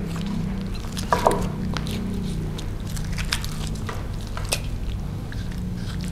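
Kitchen knife splitting a raw chicken breast on a wooden chopping board: wet squishing of the flesh with scattered sharp clicks of blade on bone and board, the loudest about four and a half seconds in.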